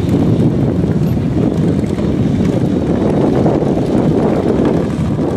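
Several heavy V-twin touring motorcycles rumbling steadily as they ride slowly past in a group, with wind buffeting the microphone.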